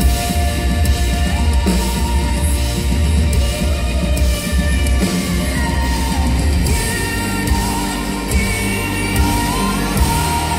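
Live band music played loud, with a strong bass and a woman singing over electric guitar, keyboards and drums.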